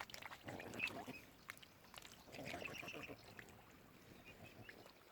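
Waterfowl calling in two short bouts, one near the start and another just after two seconds in, with a few faint clicks between.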